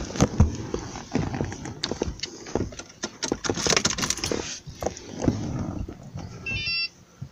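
Amur tigers growling and snarling close by, mixed with many sharp clicks.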